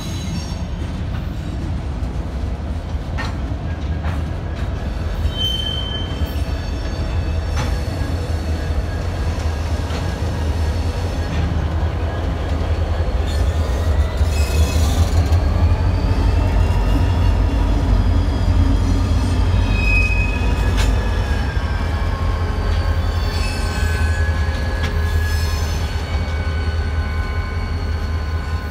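Freight train rolling slowly past, tank cars with short wheel squeals and clicks over the rails. About halfway in, diesel locomotives reach the crossing and a deep engine rumble grows louder, with gliding squeal tones.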